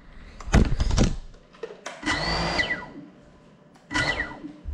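Small FPV drone's motors revving in three short bursts, a high whine that drops sharply in pitch each time the throttle is cut.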